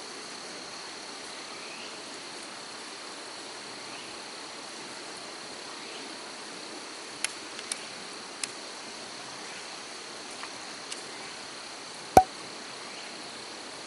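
Steady insect chorus, a constant high-pitched trill. A few light clicks come a little past halfway, and one loud, sharp knock about twelve seconds in.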